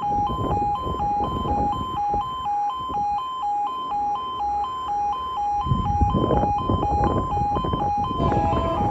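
UK automatic half-barrier level crossing warning alarm sounding continuously: a two-tone yelp switching between two pitches about four times a second. A louder rushing noise joins it about six seconds in.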